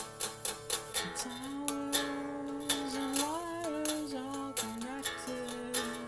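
Music: quick, even strums on a plucked-string instrument for about the first second, then a man's voice holds a long note that bends up and down over lighter picking.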